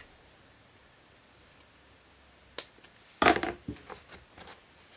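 A piece of deer-skin leather being cut: after a quiet stretch, a single click, then a short, loud sharp cutting crunch a little after three seconds in, followed by a few lighter clicks.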